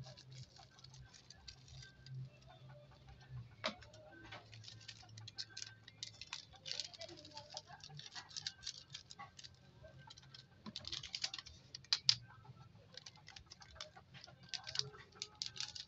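Small plastic seasoning sachets crinkling and rustling as they are snipped open with scissors and shaken out over a plate, in irregular clusters of sharp little clicks, with a faint steady low hum underneath.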